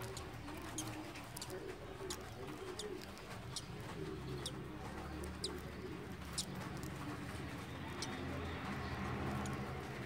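Fingernail picking and cracking pieces off a hatching budgie egg's shell: small sharp ticks roughly every second, over a low, wavering background sound.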